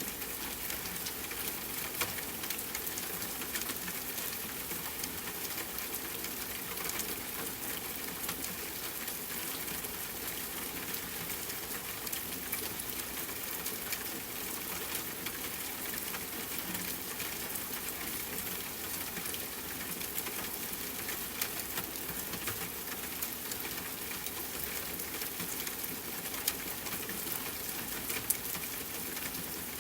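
Steady rainfall hiss mixed with the crackle of a wood fire, with a few sharper pops standing out about 2 s in, twice around 21–23 s, and near the end.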